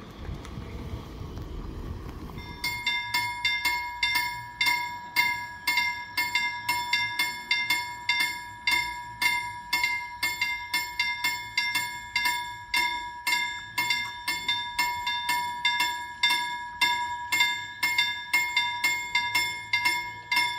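Level-crossing warning bell ringing with rapid, evenly spaced strokes, starting about two and a half seconds in after a low rumbling noise. The crossing is activating for an approaching train, and its barriers lower while it rings.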